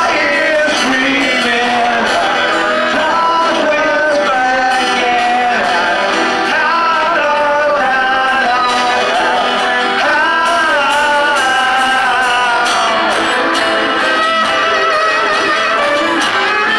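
Live rock band playing a song with singing over electric and acoustic guitars and drums, loud and steady, with little low bass in the sound.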